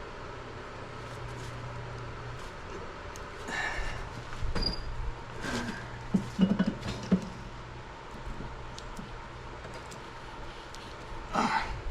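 Metal hand tools and small steel parts clinking and clattering during shop work, with a few sharp knocks clustered in the middle and another near the end. A low steady hum stops about two seconds in.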